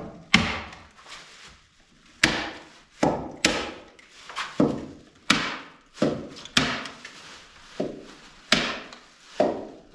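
Hand staple gun firing staples through plastic sheeting into the wooden window framing: about a dozen sharp snaps at uneven spacing, roughly one a second.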